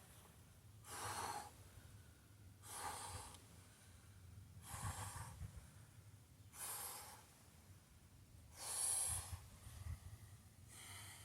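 A climber breathing hard under exertion: deep, noisy breaths about every two seconds, the loudest about nine seconds in.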